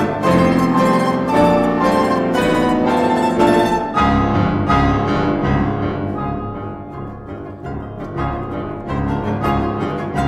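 A domra and a grand piano play a sonata duet, with rapid plucked domra notes over piano chords. About four seconds in, the quick high notes stop and low piano notes carry a softer passage, until fast plucked notes return near the end.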